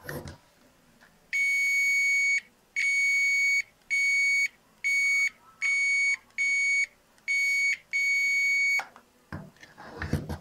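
Digital multimeter's continuity buzzer beeping in eight uneven bursts of one steady high tone as the probe tip touches and lifts off motherboard pads. Each beep signals a connection, here between the VRM output capacitors and the source of the high-side (TG) MOSFET. A click at the start and a few handling knocks near the end.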